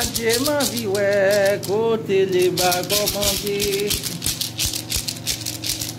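A hand rattle shaken in a quick, steady rhythm, with a voice chanting a sung prayer over it, the held notes wavering.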